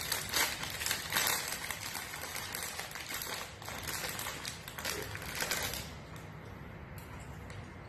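Plastic snack bag crinkling and crackling as it is handled and opened by hand, dying down to a few faint rustles about six seconds in.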